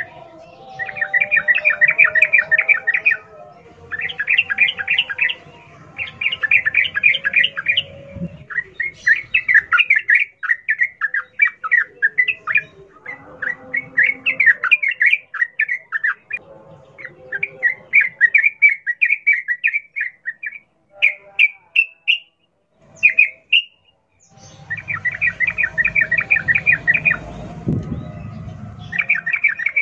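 Yellow-vented bulbul (trucukan) singing fast, chattering phrases of a second or two each, separated by short pauses, in the rapid continuous 'ropel' style.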